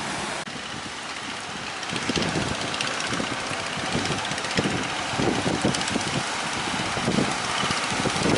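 Strong wind blowing, a steady rushing hiss with irregular low rumbles of wind buffeting the microphone, growing louder about two seconds in.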